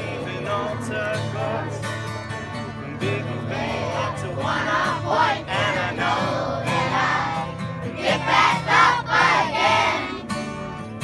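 Two acoustic guitars strumming chords while a group of children sing along, the singing swelling louder from about halfway through.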